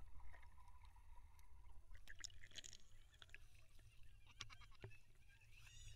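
Near silence, muffled through an action camera's waterproof housing in a swimming pool: faint water movement and scattered small clicks, with a faint steady tone for about the first two seconds.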